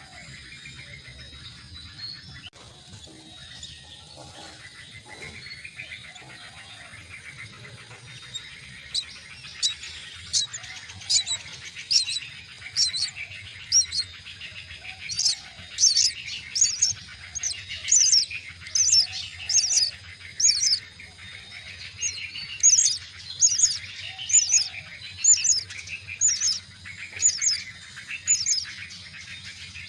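Myna chicks in the nest begging for food: a long run of short, sharp high-pitched calls, about one to two a second, starting roughly a third of the way in, over a faint steady background hiss.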